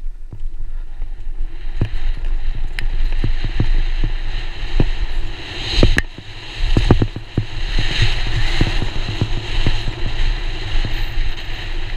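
Downhill mountain bike riding fast over a dirt trail: wind buffeting the bike-mounted microphone, the tyres rolling on dirt, and a string of sharp knocks and rattles from the bike over bumps, thickest in the middle.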